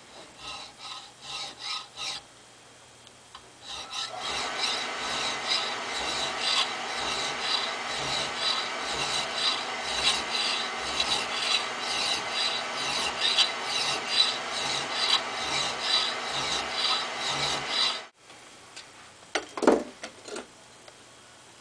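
A hand file rasping back and forth over the steel cheek of a Wetterlings axe head, reprofiling the cheek. A few short strokes come first, then a long run of quick, repeated strokes that cuts off abruptly. A couple of sharp clunks follow near the end.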